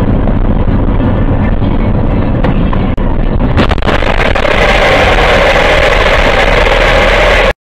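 Loud, rumbling road and engine noise of a moving car picked up by a dashcam microphone. A few sharp knocks come about three and a half seconds in, after which the noise turns louder and hissier until it cuts off.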